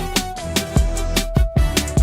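Background music with a steady drum beat over deep bass and a held melody line.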